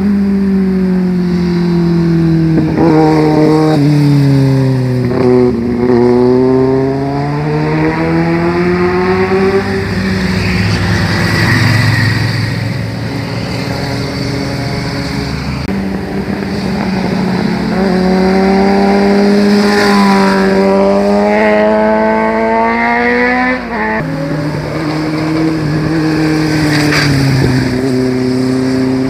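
Several motorcycles passing through a hairpin bend one after another, engine note falling as they slow into the corner and climbing again as they accelerate out.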